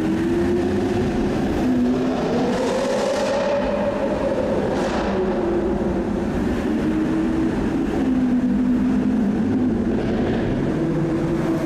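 Car engine running with a steady low rumble, its pitch climbing for a couple of seconds and falling back as it revs and eases off. Two brief rushing hisses come near the middle.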